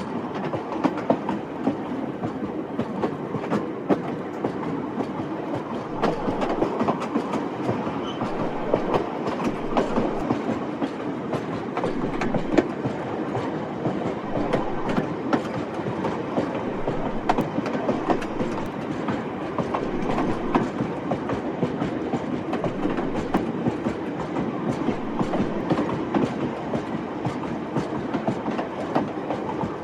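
Old train running steadily along the track: a continuous rumble with many sharp wheel clacks over the rails.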